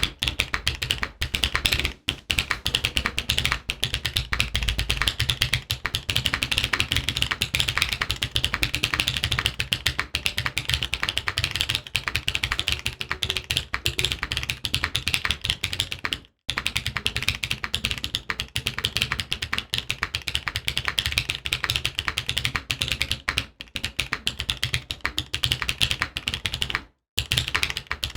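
Fast typing on a Midway60 SE mechanical keyboard with stock BSUN Kiki switches, a full aluminium plate and GMK Beta keycaps: a dense, continuous stream of keystroke clacks that stops briefly about halfway through and again near the end.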